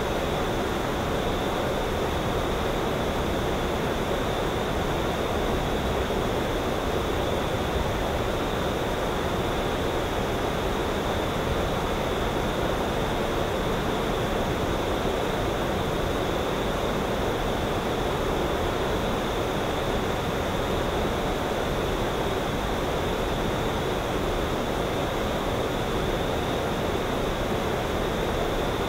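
Steady outdoor ambient noise: an even, unchanging rush with no distinct sounds standing out.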